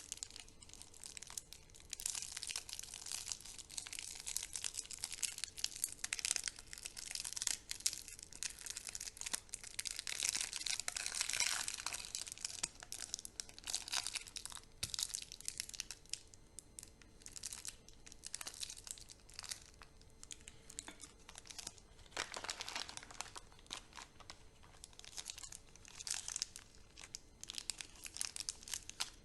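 Chocolate candy wrappers being torn open and crinkled by hand: a dense, irregular crackling that swells and eases in busier and quieter stretches.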